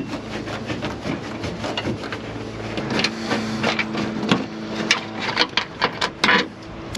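Screwdriver clicking and scraping against small bolts on a carbon-fibre trim panel, in many short irregular ticks, with a steady hum underneath.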